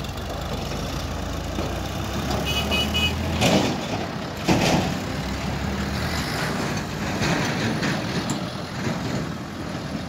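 Diesel farm tractors running under load as a tractor pulls a loaded trolley away. Three short high beeps come between two and a half and three seconds in, followed by two loud knocks about a second apart.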